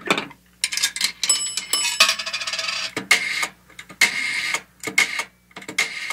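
Logo sound effect made of a run of sharp, irregular clicks and clatters, with a brief bell-like ring about a second in.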